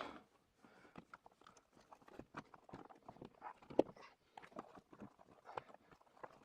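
Irregular clicks and knocks as stiff electrical wires and a dimmer switch are pushed back into a wall electrical box, with one louder knock a little under four seconds in.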